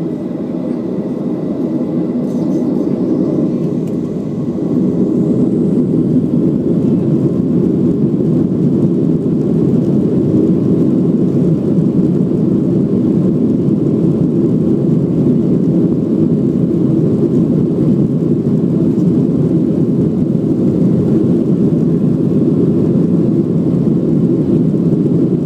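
Cabin noise of a Boeing 737-700's CFM56 jet engines, heard from a window seat over the wing, growing louder about four to five seconds in as thrust comes up for the takeoff roll. It then holds as a steady, low, even noise.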